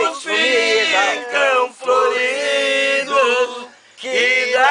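A man singing unaccompanied in Portuguese, drawing out long held, wavering notes, with a short breath pause near the end.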